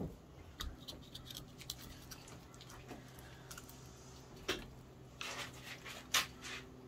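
Fillet knife cutting into a walleye on a plastic cutting board: scattered scrapes and clicks, with a sharper knock about four and a half seconds in and another near the end.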